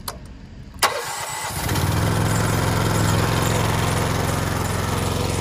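Pressure washer's gasoline engine starting about a second in with a sharp click and a short catch, then settling into steady running as it warms up.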